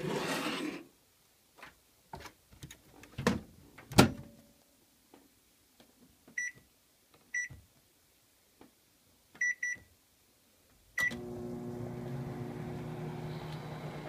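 Microwave oven being set going: a short scrape, then knocks as the door is shut, the loudest about four seconds in. Five keypad beeps follow, and about eleven seconds in the oven starts up with a steady hum.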